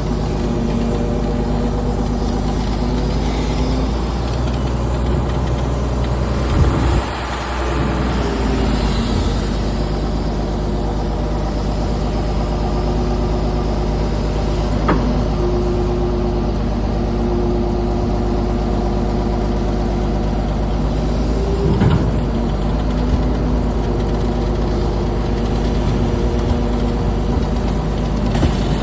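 Engine of a canal-clearing earth-moving machine running steadily at a loud, even level, with a few sharp knocks scattered through.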